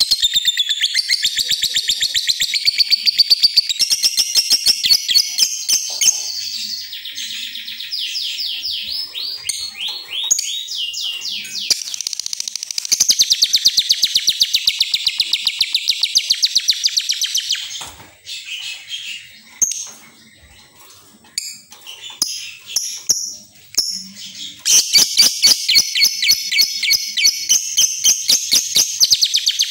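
Lovebird singing a long, rapid, high-pitched chattering warble. About two-thirds of the way through it drops to a few scattered chirps for several seconds, then resumes the fast chatter near the end.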